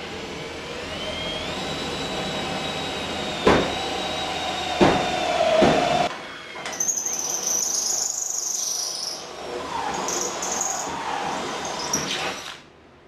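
Cordless drill with a step bit boring a 1/2-inch hole through the sheet-metal upper radiator support. The motor whine rises and then holds steady, with a few sharp clicks. From about halfway a high-pitched squeal of the bit cutting metal comes in two stretches, then the drill stops shortly before the end.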